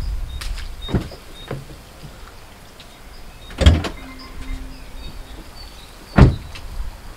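Driver's door of a Volvo XC40 being opened and shut, with two loud thuds about two and a half seconds apart and lighter knocks before them. A faint steady hum runs for about a second and a half between the thuds.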